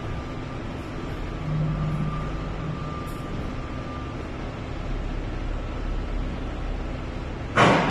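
Steady low rumble inside an empty steel shipping container, then a sudden loud thump near the end.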